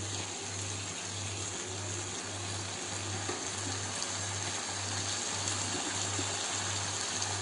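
Tomato purée masala with onion and capsicum frying in a nonstick pan, a steady sizzling hiss, over a low hum that pulses about three times a second.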